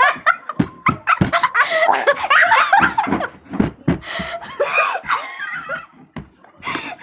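People laughing and chattering excitedly, with a few short knocks mixed in.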